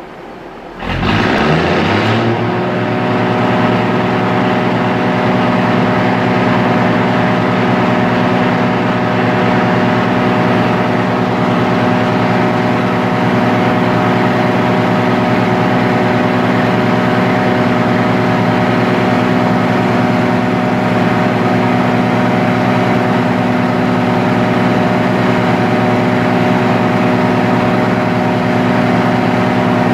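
Hitachi RHN diesel railcar's engine revving up about a second in, climbing quickly in pitch, then held at steady high revs with a loud exhaust. The engine is being run up to charge the air brakes for a brake test.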